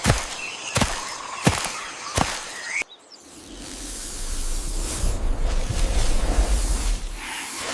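Sharp thumps repeating about every 0.7 s, which stop abruptly a little under three seconds in. A low rumbling noise then swells over several seconds and fades near the end.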